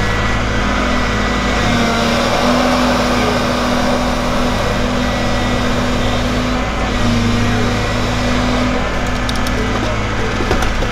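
Excavator's diesel engine and hydraulics running under a steady drone whose pitch steps up and down every couple of seconds as the grapple on the tiltrotator is worked. A few light clicks come near the end.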